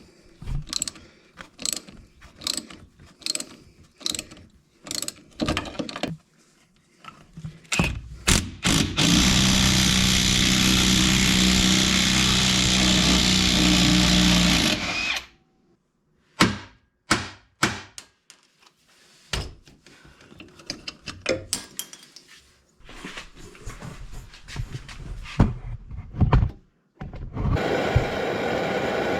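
Tool work on a car: a run of clicks and knocks, then a power tool running steadily for about six seconds before stopping abruptly, followed by more scattered clicks and a steady rumbling noise that starts near the end.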